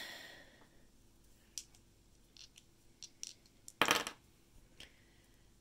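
A pair of six-sided dice rolled onto a paper game board on a table: a few faint clicks, then a short clatter as the dice land and tumble a little under four seconds in, with a couple of small taps as they settle.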